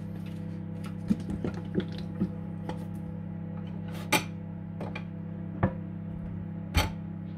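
Clinks and knocks of a glass baking dish being handled and set down on a wooden cutting board, about six sharp knocks scattered through, the loudest about four seconds in and near the end.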